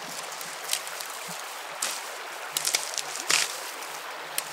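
Dry dogbane stalks and grass rustling and crackling as a stalk is harvested by hand, with several short, crisp snaps, the loudest about three seconds in. A steady hiss runs underneath.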